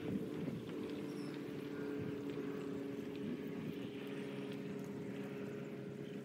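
Steady hum of an engine or motor running at a constant speed.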